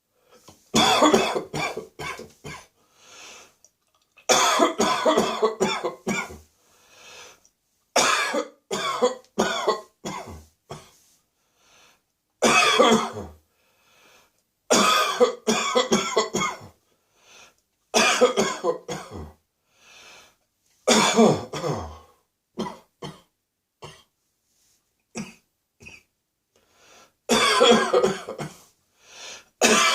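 A person's dry cough after bronchitis, in fits of several quick coughs each, coming every few seconds with short quiet gaps for breath between.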